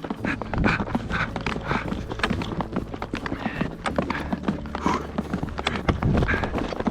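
Snowshoes crunching through snow in quick, regular steps, as people hurry along on foot.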